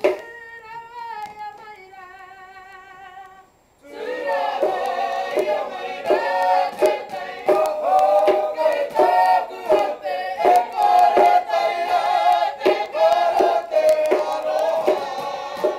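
Māori poi song: a lone voice sings the opening lines, then about four seconds in the group of performers joins in, singing together with regular slaps of the poi keeping time about twice a second.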